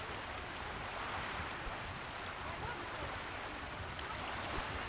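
Steady rushing noise of wind and lake water.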